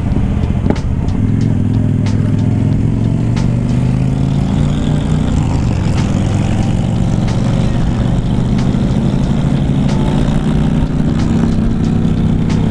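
Motorcycle engine running under way. Its pitch climbs as it accelerates over the first few seconds, then holds fairly steady at cruising speed.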